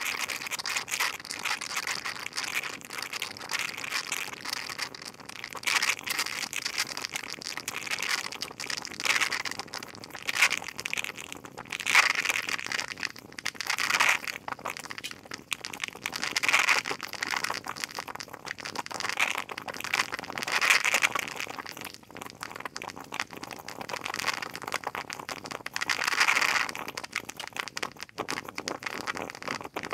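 Bialetti Mini Express moka pot on an electric coil burner, hissing and crackling irregularly as it brews, in uneven surges.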